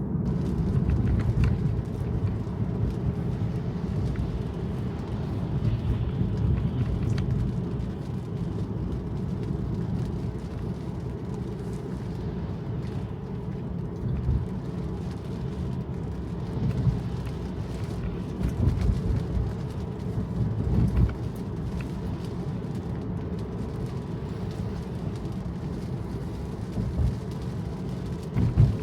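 Low, steady road and tyre rumble of a Tesla electric car, heard inside the cabin while driving, with no engine note. There are a few brief louder bumps in the middle stretch and one near the end.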